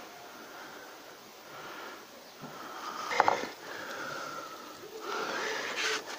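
Small handling noises from hand work on an electric vibrator motor's terminal box, with one sharp click about three seconds in and short scraping sounds after it.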